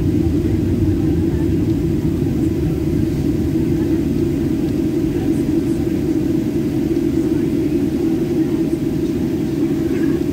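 Airliner's jet engines running at low taxi thrust, heard from inside the passenger cabin as a steady rumble with a faint steady hum above it.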